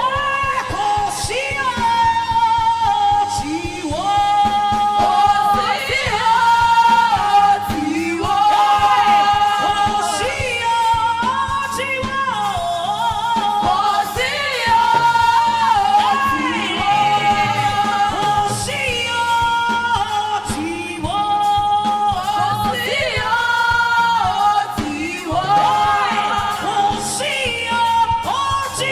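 Gospel song: a woman singing long, held notes over instrumental accompaniment.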